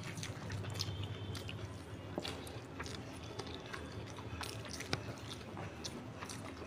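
Close-miked eating sounds of rice and curry eaten by hand: chewing with scattered short wet mouth clicks and smacks, and fingers squishing rice and curry together on a banana leaf.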